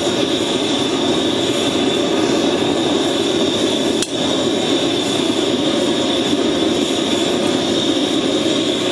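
Forge running with a steady rushing noise throughout. About four seconds in there is one sharp metallic clink as a pair of blacksmith's tongs is set down.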